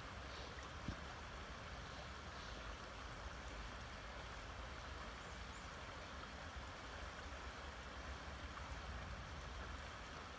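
Creek running steadily, a faint, even rush of flowing water, with one small click about a second in.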